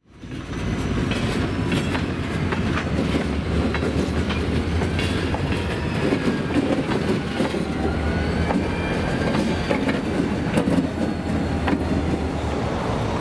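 A train passing close by: a steady rumble of wheels on rail with repeated clicks and clacks over the rail joints and faint high-pitched wheel squeal, fading in at the very start.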